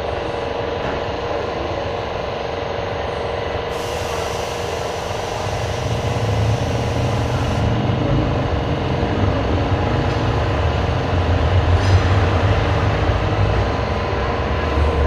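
Car-accessory shop ambience: a steady machine hum over a noisy bed. A hiss starts about four seconds in and lasts a few seconds, and a low rumble swells from about six seconds on.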